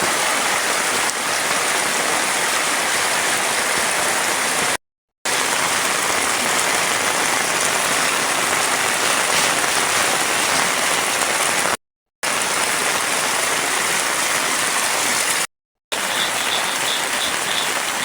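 Heavy rain falling steadily, an even dense hiss, broken by abrupt cuts to silence where the clips are joined. Near the end a faint rapid high-pitched pulsing sits over the rain.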